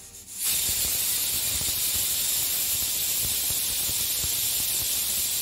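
Stovetop pressure cooker cooking dal, its whistle weight lifting to vent steam in a loud, steady, high hiss that starts about half a second in. This is the cooker's fifth whistle.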